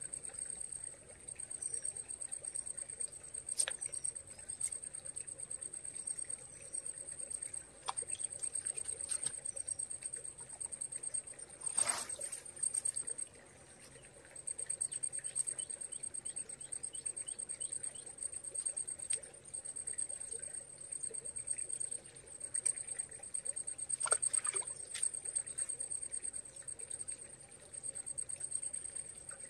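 Outdoor ambience: an insect trilling steadily in a high, finely pulsing tone, over a faint trickle of water, with a few scattered sharp clicks and knocks, the strongest about twelve seconds in.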